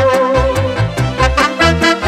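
Instrumental break in Romanian folk music: a saxophone plays a quick melody over a bass that alternates between two notes and a steady beat.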